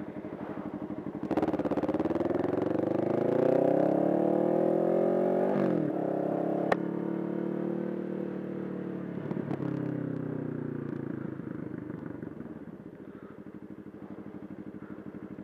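Kawasaki Ninja 650R's parallel-twin engine pulling away from a stop: the pitch climbs hard, drops at an upshift about five and a half seconds in, then climbs more slowly in the next gear before easing off. A single sharp click comes just after the shift.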